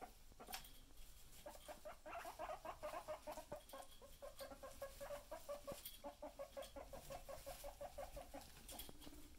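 Faint guinea pig rumbling: a rapid string of short pulsing purrs that starts about a second and a half in, breaks briefly near the middle, and stops shortly before the end.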